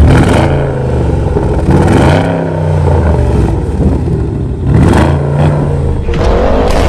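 Porsche Panamera Turbo's 4.8-litre twin-turbo V8 exhaust, revved in a series of blips, about four times, each rise in pitch followed by a fall back toward idle.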